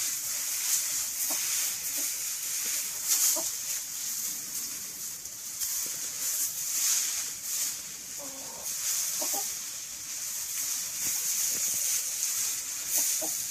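Chickens scratching through dry shredded leaves, a steady rustling that swells and fades, with a few short soft clucks now and then.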